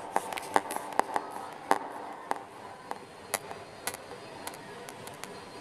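Irregular small clicks and taps of hands working camera cable connectors and power-supply wires, coming thickly for the first two seconds and more sparsely after.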